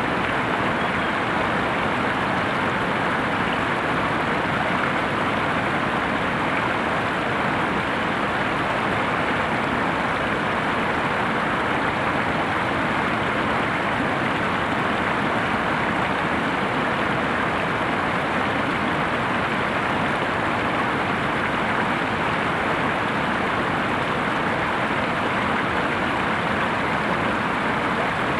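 Water pouring over a wide, low river waterfall: a steady, even rush of falling water with no change in level.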